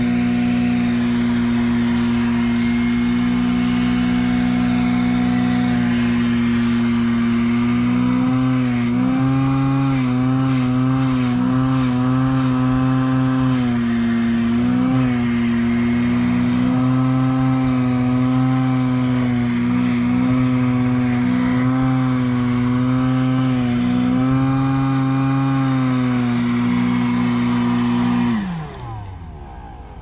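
RoadPro 12-volt wet/dry canister vacuum running steadily while sucking water off a rubber floor mat. Its motor pitch dips and wavers again and again through the middle. Near the end it is switched off and the motor winds down.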